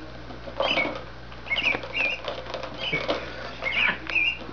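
Plastic ball rolling and rattling around the track of a circular cat toy as kittens bat at it, with sharp clicks and knocks about once a second. Short high chirps recur every second or so.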